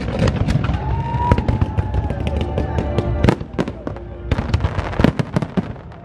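Aerial fireworks bursting overhead. A dense run of rapid crackling bangs lasts about three seconds, then thins to a sparser string of separate bangs.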